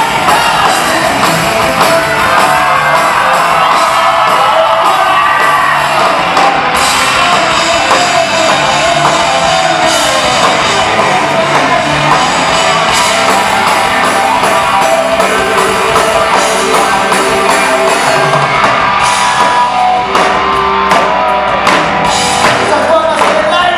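Rock band playing loudly live, with electric guitars, drums and a singer's voice over the top.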